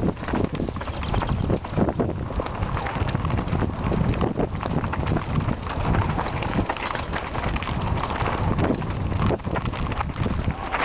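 Mountain bike descending a loose gravel and rock trail: tyres crunching over stones and frequent rattling knocks from the bike over bumps, under steady wind buffeting on the microphone.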